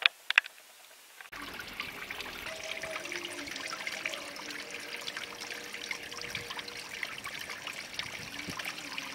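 A few sharp clicks, then about a second in a sudden steady crackling, trickling water noise as the camera's microphone goes under the pond's surface.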